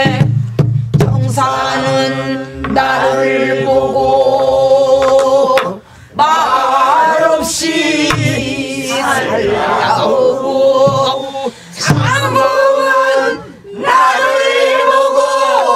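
A woman singing a Namdo folk song (namdo minyo) in a full-throated, wavering style while beating time on a buk barrel drum with a stick. The drum strokes come as sharp knocks under the long held notes.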